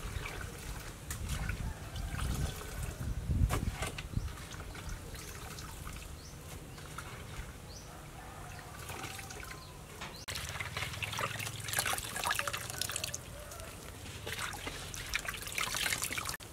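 Mushrooms being washed by hand in a metal basin of water: splashing and water dribbling back into the basin, with a few knocks in the first few seconds and louder splashing around the middle and near the end.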